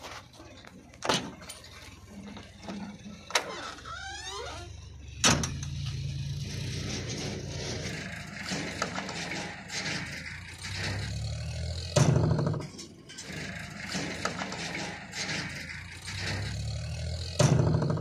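JCB 3DX backhoe loader's diesel engine starting about five seconds in, then running steadily, with several sharp knocks and clunks around the cab.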